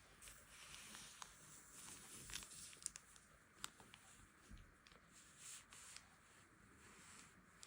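Near silence broken by a few faint, sharp taps and soft rustles of hands handling a smartphone and its packaging.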